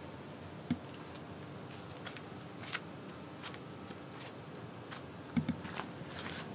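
A few soft thumps and light clicks from high-heel mule slides shifting on a carpeted floor, over quiet room tone: one thump just under a second in and a quick pair of thumps near the end.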